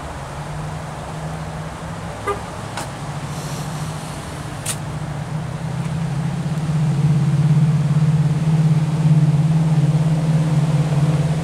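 A car engine running nearby with a steady low hum that grows louder about halfway through and holds. A few sharp clicks come a few seconds in.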